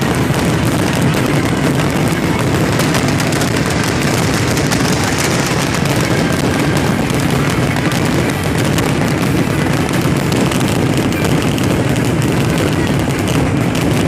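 Dense, continuous barrage of fireworks, the bangs and crackles following one another so fast that they merge into one unbroken din.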